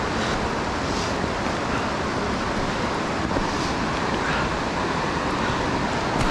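Steady rushing of the Youghiogheny River's whitewater, with soft footsteps on the wet, rocky trail about once a second.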